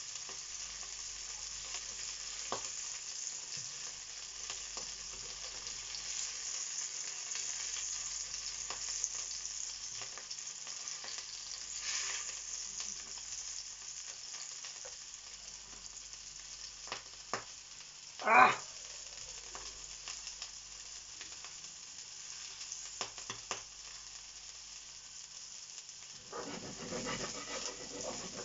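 Skewers of chorizo, foie gras and tomato sizzling in hot fat in a small non-stick frying pan, with light clicks of silicone tongs against the pan as they are turned. A brief louder knock stands out about two-thirds of the way through.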